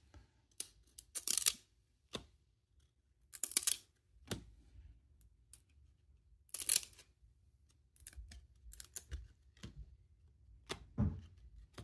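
Glossy cardboard trading cards being slid one at a time through a stack held in the hand: intermittent short papery swishes and small clicks, three of them louder than the rest.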